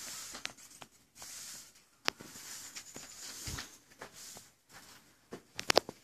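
A pony walking on soft dirt arena footing: soft, irregular hoof thuds and scuffs, with scattered sharp clicks and a quick cluster of louder clicks near the end.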